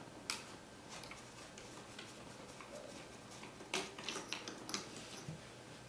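Faint, scattered light clicks and taps of small screws and a screwdriver being handled while the color wheel's mounting screws are taken out, with a cluster of clicks a little before the end.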